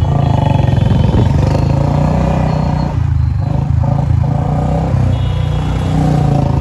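Motorcycle engine running steadily, its exhaust note heard close up.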